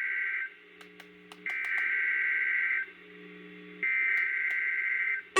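NOAA Weather Radio SAME header: screechy digital data bursts of rapidly alternating tones, repeated with about a second's gap between them. This marks the start of an emergency alert test. One burst ends just after the start, and two more follow.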